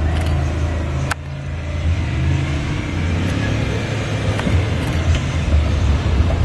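Competition off-road 4x4's engine running as the truck drives down a muddy hillside track, a steady low rumble. A single sharp click about a second in.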